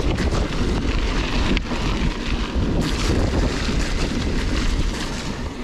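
Wind buffeting the microphone over the rumble of mountain bike tyres rolling on a wet, sandy gravel track, with a sharp knock about a second and a half in.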